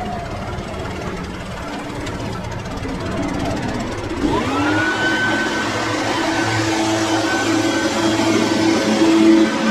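Small petrol engine of yard equipment running, then speeding up about four seconds in and holding a steady high-speed drone.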